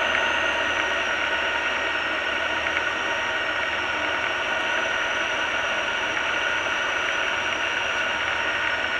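Diamond DA20 light aircraft's piston engine and propeller running steadily in flight, heard inside the cockpit, with a thin high whine held above the drone.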